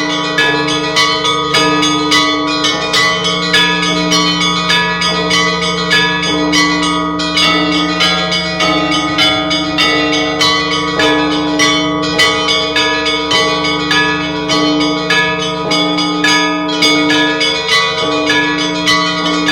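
Church bells ringing a continuous festive peal: quick, repeated strikes of smaller bells, about two to three a second, over the lasting hum of larger, lower bells.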